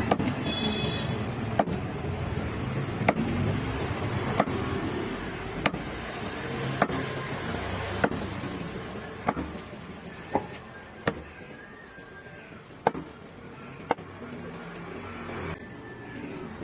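Large knife chopping a cobia into steaks: about a dozen sharp knocks of the blade hitting the cutting board, roughly one every second or so, over a steady background rumble.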